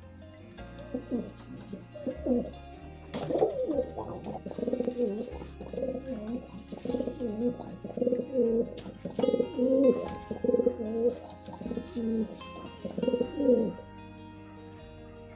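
Pigeons cooing, with repeated rolling coos overlapping one another, from about half a second in until shortly before the end.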